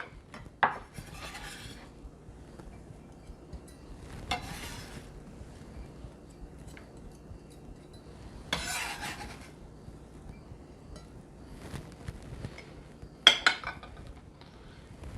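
Kitchen utensils and dishes being handled: light clinks with a few short scrapes and clatters spread through, the sharpest near the end.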